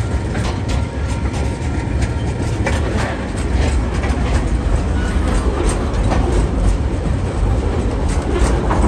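Freight wagons of a TasRail train rolling past close by: coal hopper wagons and then container flat wagons. A steady rumble with repeated clicks of the wheels over the rails, louder from about three and a half seconds in.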